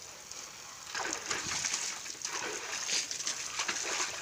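Water from a garden hose splashing over a person's head and body and into a plastic tub of water. A soft spray hiss becomes louder, irregular splashing about a second in.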